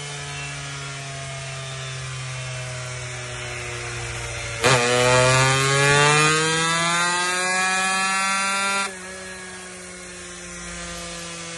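A power tool's motor runs with a steady whine. About halfway in it bites into the work for about four seconds, louder and with a hiss, its pitch dipping under the load and then climbing, before cutting off suddenly.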